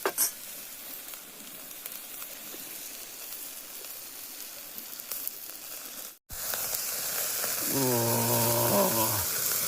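Meat fat sizzling on a small folding grill over a titanium wood stove's hot coals, a steady hiss. It breaks off for a moment about six seconds in and comes back louder.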